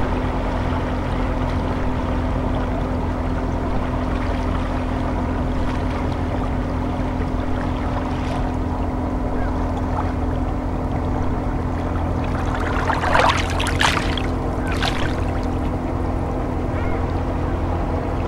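Small waves lapping on a pebble shore over a steady low drone with a hum, with a few sharper splashes about two-thirds of the way through.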